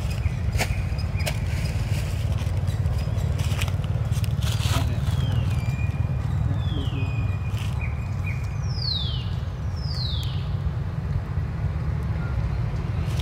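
Wind buffeting the microphone as a steady low rumble, with scattered clicks. Through the middle there are a few high calls gliding downward, and near the end two quick, sharp downward sweeps.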